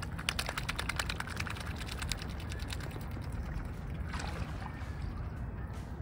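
Mute swan dabbling with its bill at the water's surface: a quick run of wet clicks and slurps for about two seconds, then a softer splashy dabble about four seconds in.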